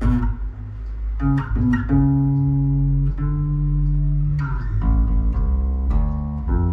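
Electric bass guitar being played: a run of plucked notes, some held and left to ring for about a second before the next.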